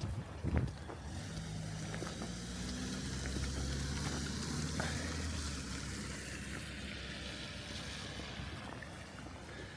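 A motor vehicle passes by, its engine hum and tyre hiss swelling to a peak about four to five seconds in and then slowly fading. A couple of footsteps sound at the start.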